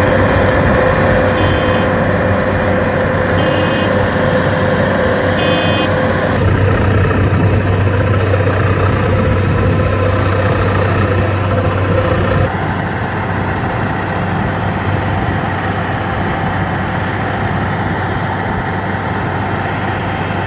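Kukje KC100 six-row combine harvester running steadily, with a short high alarm beep about every two seconds during the first six seconds. The engine note shifts about six seconds in and drops a little in level about twelve seconds in.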